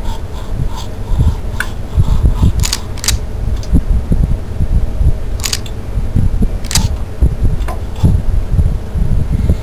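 Teeth being scrubbed with a manual toothbrush: irregular brushing strokes several times a second, with low thumps and a few sharp clicks mixed in.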